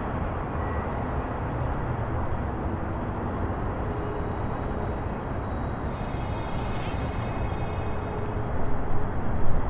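CSX double-stack freight train rumbling as its last cars roll away on a curve, with a faint high ringing tone from about six seconds in and a few louder thumps near the end.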